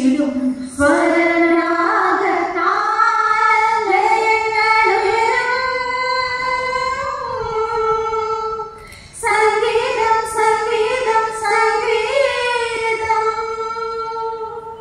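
A group of women singing a song together into microphones, with long held notes. The singing breaks briefly for breath about nine seconds in.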